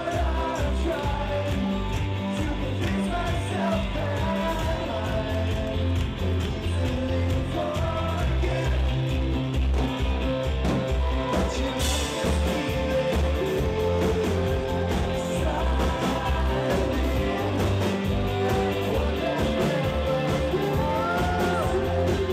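Rock band playing live: drums and bass keep a steady beat under guitar, with a male lead vocal singing. A cymbal crash cuts through about twelve seconds in.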